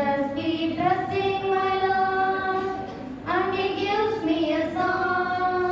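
Female voices singing a slow melody in long held notes.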